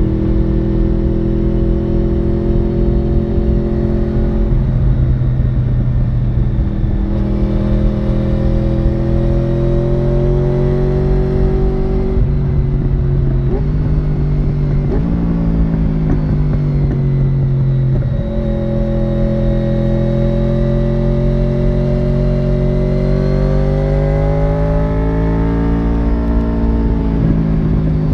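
Honda VFR750 (RC36) 750 cc V4 engine heard from on board while riding. The note climbs and falls with the throttle and jumps at several gear changes, with a quick run of shifts near the middle.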